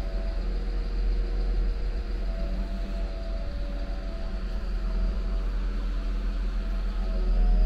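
Soft ambient music with long held notes that shift in pitch, over a steady low rumble that grows louder near the end.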